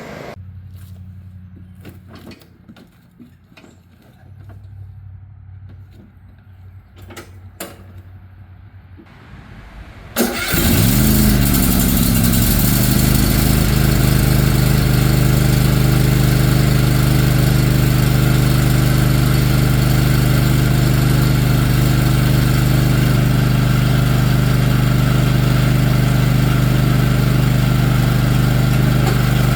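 A few faint clicks and knocks, then about ten seconds in the Cub Cadet XT-1 LT-50 lawn tractor's engine starts with a brief rise in pitch and settles into running steadily.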